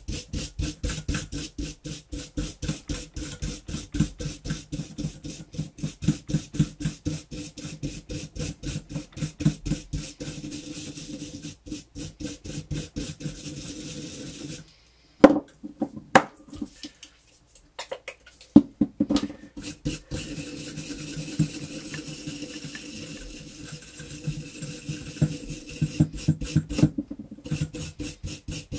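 Bronze wire brush scrubbing the commutator of a Hamilton Beach Model 30 mixer motor in fast back-and-forth strokes, cleaning off the brush scoring. The scrubbing stops for a few seconds a little past halfway, with a few sharp knocks, then carries on more lightly.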